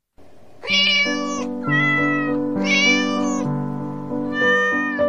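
Intro music of held chords with four cat meows laid over it, each under a second long.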